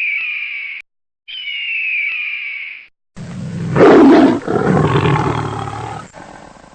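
Two high whistling calls, each falling in pitch, then a loud rough roar like a big cat's, starting about three seconds in and fading out near the end.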